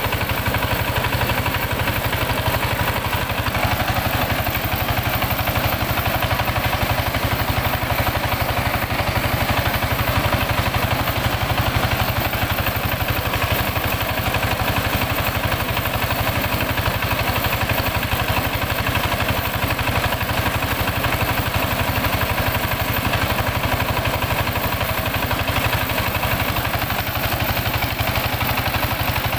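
Mobile mini rice huller running steadily: its engine and hulling machinery make one continuous mechanical noise that does not change.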